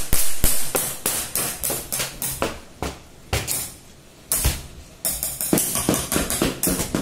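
Children drumming by hand on a toy chalk slate and a flat plastic board: a fast, uneven run of sharp slaps and clatters, several a second, pausing briefly about halfway through before picking up again.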